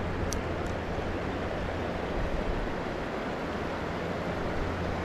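Steady wind and water noise buffeting the microphone, with two faint short clicks in the first second.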